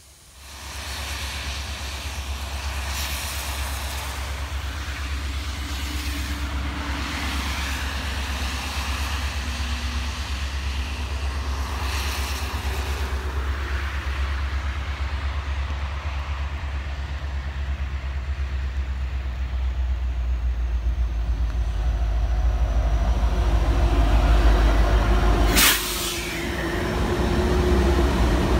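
Freight train passing trackside, its Norfolk Southern diesel locomotives drawing close and going by over the last few seconds with a steady engine note, under a heavy low rumble of wind on the microphone. A single sharp knock sounds near the end.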